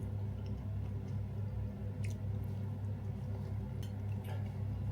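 A person chewing a mouthful of dense, heavy cake, with a few soft mouth clicks, over a steady low electrical hum.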